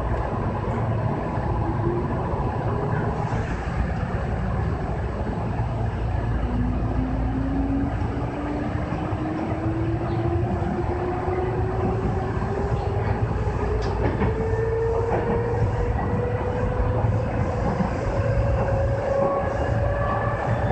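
Kintetsu 6020 series electric train running, heard from inside the front cab: a steady rumble of wheels on rail, with a motor whine that climbs slowly and evenly in pitch from a few seconds in as the train gathers speed.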